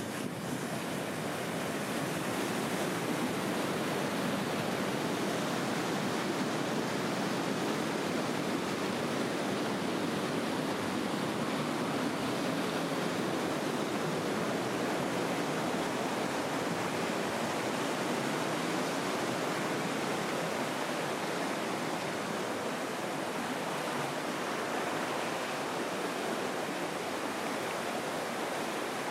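Water of a spring-fed stream rushing steadily, a constant even hiss with no letup.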